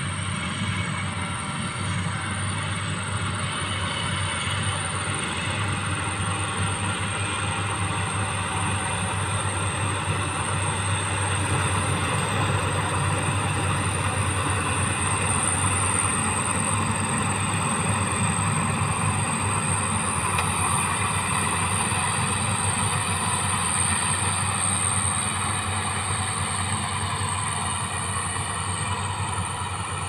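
Small tracked rice combine harvester running steadily, its engine hum and threshing clatter keeping an even, unbroken level.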